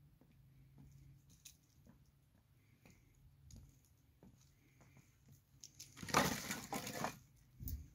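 An armload of split firewood and dry brush set down on the ground: a loud crunching clatter of wood and twigs lasting about a second, then a single dull thump.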